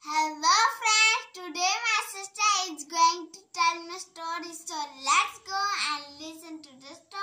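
A young girl singing in a high voice, unaccompanied, with notes held and bending in pitch.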